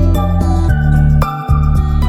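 Background music: gentle melodic notes changing about every half second over a steady bass.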